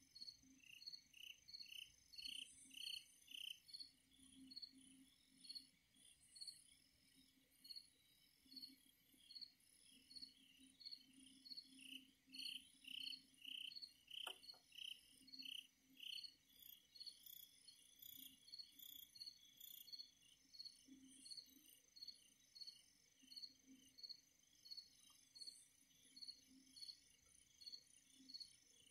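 Faint chorus of night insects, mainly crickets chirping in a steady, even rhythm of about two to three short chirps a second, with other insects chirping higher above.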